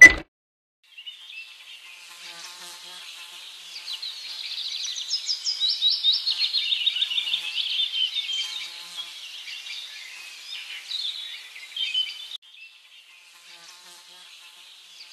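A short countdown beep at the very start, then insects buzzing in a high-pitched, rapidly pulsing chorus. The chorus swells to its loudest in the middle, drops off abruptly about twelve seconds in, and carries on more quietly.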